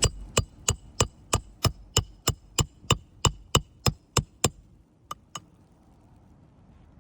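Hammer driving a roofing nail through a 3-tab shingle: a quick run of about fifteen ringing metal strikes, about three a second, then two lighter taps and the blows stop.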